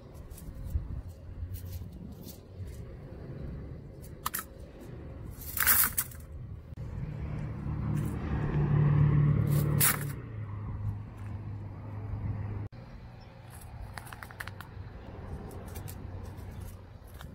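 Dry mesquite pods rustling and crackling as they are handled, dropped into a plastic bucket and picked from the tree, with sharp crackles about six and ten seconds in. A low engine hum swells in the middle and cuts off suddenly about two-thirds of the way through.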